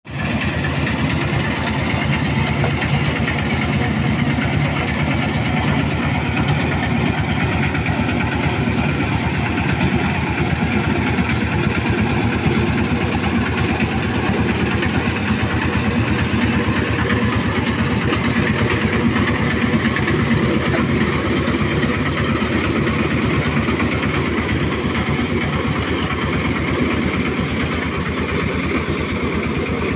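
An old engine running steadily with a fast, even beat, slowing slightly near the end.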